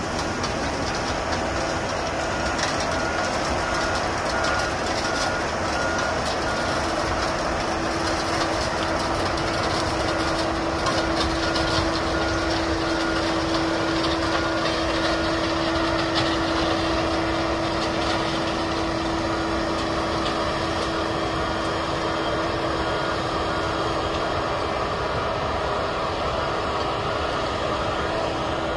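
Rail-mounted track maintenance machine running as it works along the track, a steady mechanical noise, with a backup alarm beeping in quick even pulses through most of it.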